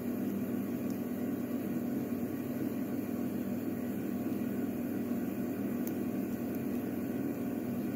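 Steady low hum of background noise at an even level, with no distinct clicks or knocks standing out.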